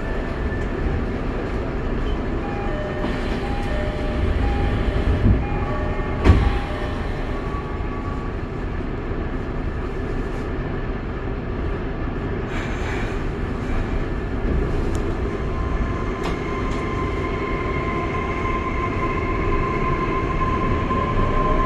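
Kobe Municipal Subway 6000 series train running, heard from inside the car: a steady rumble of wheels and running gear, with a sharp clank about six seconds in. A steady whine from the traction motors sets in over the last few seconds as the train comes past a station platform.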